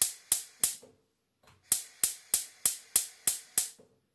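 Gas stove's igniter clicking about three times a second, in a short run and then a longer one, while the burner is being lit and has not yet caught.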